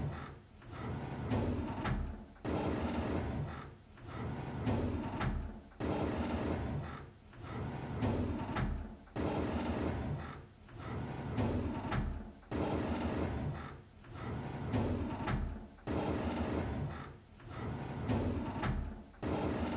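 A drawer being slid open again and again, one slide about every two seconds. Each slide starts sharply and trails off.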